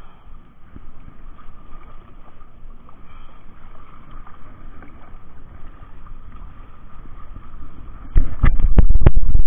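Steady low rumble of wind and water aboard a small fishing boat at sea. About eight seconds in, much louder rumbling thumps break in: wind buffeting or handling noise on the microphone.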